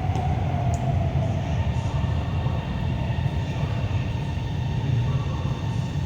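Guangzhou Metro Line 22 train running between stations, heard from inside the car: a steady low rumble of wheels on track and running gear, with a faint whine that falls slightly in the first second.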